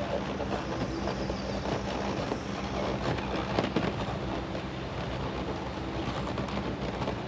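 Small battery-operated fan running on its high setting in a DIY styrofoam-cooler swamp cooler, a steady hum, with a few light knocks around the middle.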